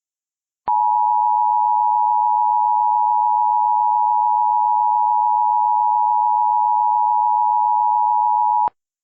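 Emergency Alert System two-tone attention signal: one loud, steady alert tone sounding for about eight seconds, starting under a second in and cutting off sharply near the end. It announces the emergency message about to be read.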